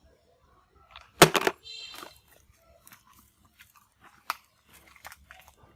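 Hard plastic toy truck being handled: a loud crunchy knock about a second in, a brief high squeak right after, then scattered small clicks and one sharp click about four seconds in.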